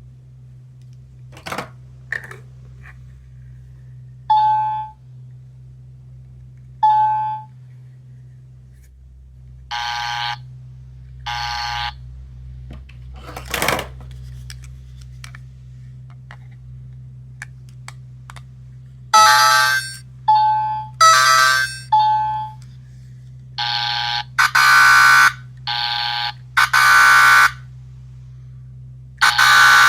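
A small electronic sound-making capsule toy playing its sound effects through a tiny speaker: a few clicks, then two short dings, then two buzzer tones. Later comes a quick run of loud buzzer and chime-like alarm tones, one after another.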